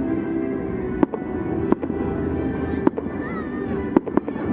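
Fireworks salute with shells bursting in sharp bangs, about five of them, the last two close together near the end, over a steady background rumble.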